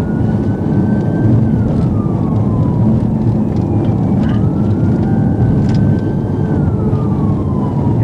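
Police cruiser's siren on a slow wail, rising, holding and falling twice, heard faintly over loud engine, tyre and wind noise inside the patrol car as it drives at speed.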